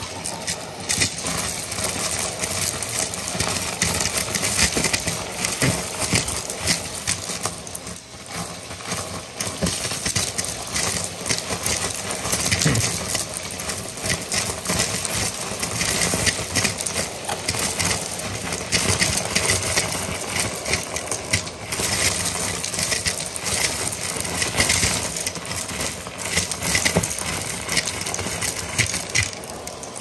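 Shark upright vacuum running with its bare hose wand on carpet, sucking up a pile of glitter, sequins, confetti and small plastic and wooden pieces. A dense, continuous rattle and clatter of debris racing up the hose rides over the motor's steady suction noise.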